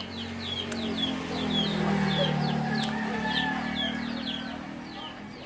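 Chickens or chicks peeping steadily, a run of short, high, downward chirps about two or three a second. A low drone swells about a second in and fades away again, the loudest sound.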